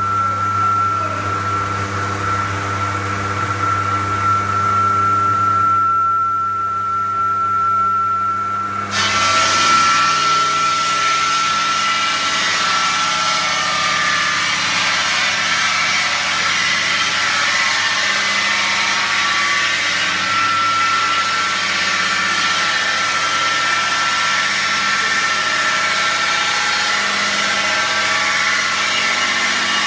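IMER Masonry 750 masonry saw running, its big blade spinning with a steady high whine over a low motor hum. About nine seconds in, the blade starts cutting into a clay brick, adding a steady grinding hiss that carries on.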